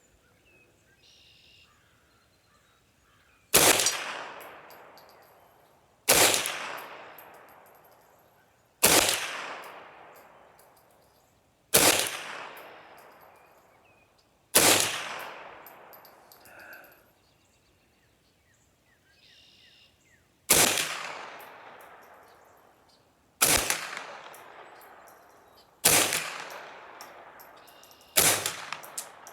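Ruger 10/22 .22 LR rifle fired in slow single shots, each crack trailing off in a long echo. Five shots about three seconds apart, a pause of about six seconds, then four more at the same pace.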